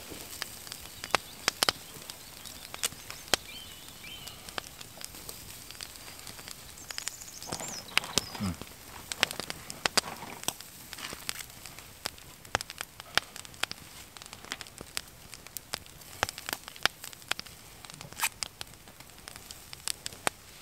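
Wood campfire crackling, with many irregular sharp pops and snaps.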